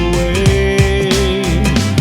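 Christian worship song playing as the soundtrack: a full band with drums and bass under a long held melody note that ends near the end.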